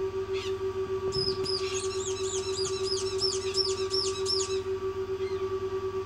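Newly hatched Eclectus parrot chick peeping: a rapid run of high, arched chirps, about four a second, from about a second in until past four seconds, with single chirps before and after. A steady pulsing machine hum runs underneath.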